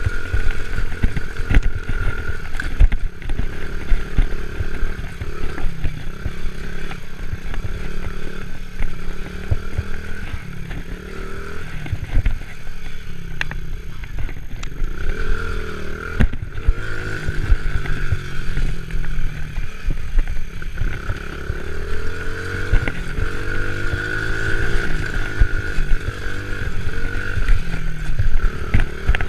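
Small four-wheeler (ATV) engine running under way, its pitch rising and falling over and over as the throttle is worked, with frequent clatter and knocks from the machine over the bumpy dirt trail and a steady high whine.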